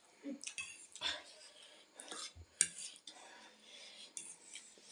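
Eating utensils clinking and scraping against ramen bowls in a string of separate sharp clicks, the loudest a little past the middle.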